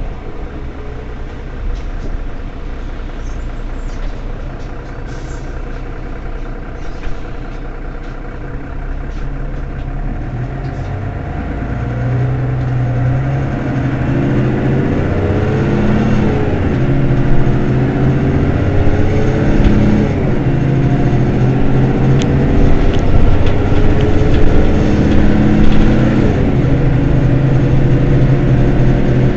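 Mercedes-Benz Citaro city bus's diesel engine running low at first, then pulling harder from about twelve seconds in. Its note rises and drops back three times as the automatic gearbox shifts up.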